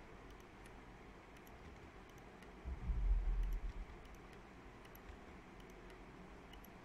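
Faint computer mouse clicks and keyboard key presses over a steady hiss, with a low rumble lasting about a second near the middle.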